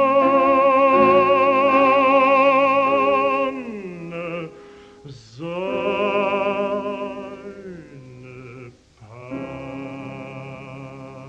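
Baritone voice singing a German art song with piano accompaniment, in a 1943 recording. He holds a loud note with wide vibrato for about three seconds, sings a softer phrase about five seconds in, and the music continues more quietly from about nine seconds in.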